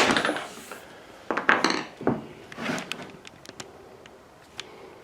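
Irregular clicks and clatters of hand tools and hard parts being handled while the battery box is worked loose from a 1/5-scale RC truck's chassis, with a louder cluster about one and a half seconds in.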